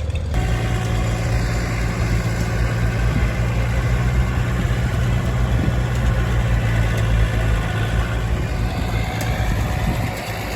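A farm tractor's engine idling steadily, with an even low hum; it eases off slightly near the end.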